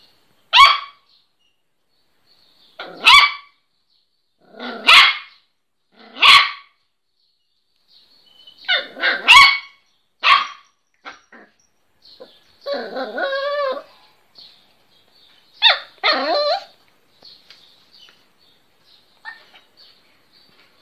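Miniature pinscher puppy barking: short, sharp single barks every second or two, a quick cluster of barks about nine seconds in, and a longer wavering bark around thirteen seconds, with only faint small sounds near the end.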